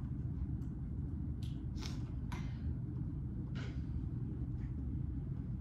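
Steady low rumble of room noise, with a few short rustling noises about one and a half to four seconds in.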